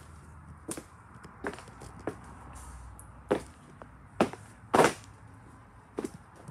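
Scattered knocks and thumps, about seven at irregular intervals, the loudest a little before five seconds in, over a faint low steady hum.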